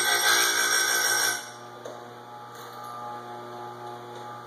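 Oregon 511AX chain grinder, its wheel running in reverse, grinding a chainsaw tooth; about a second and a half in the wheel is lifted clear of the chain and the motor runs on freely with a quieter, steady hum.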